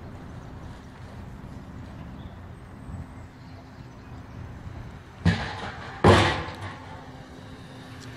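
Two loud metal bangs about a second apart, the second ringing on briefly, from fairground ride steelwork being taken down. Underneath, an engine runs steadily.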